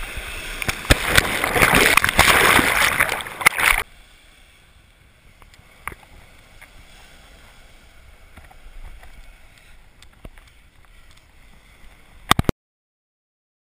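Sea waves breaking and churning right over the microphone, loud and splashy for about four seconds. Then the sound drops suddenly to a faint hiss of surf with a few small knocks, and cuts out near the end.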